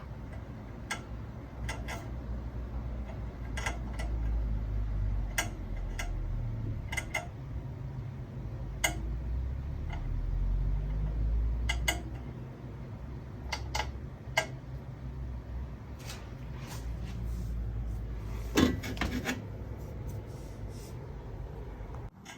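Irregular sharp clicks and light knocks over a low rumble, with a louder knock about three-quarters of the way through; the source is not identified.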